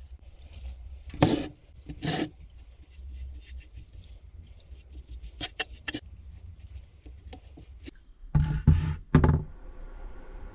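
Scattered knocks and handling noises: two sharp knocks, a few light clicks, then three heavier thumps close together about eight seconds in.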